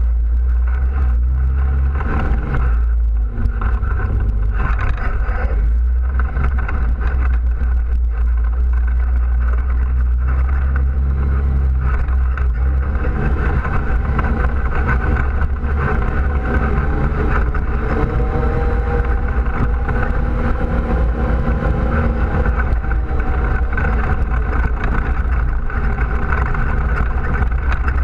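ATV engine running steadily while the machine is ridden along a dirt trail, heard from a camera mounted on it. Its note rises and falls a little with the throttle in the second half.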